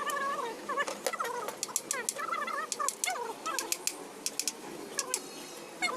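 Fowl calling in short, wavering calls, mixed with many sharp clicks and taps.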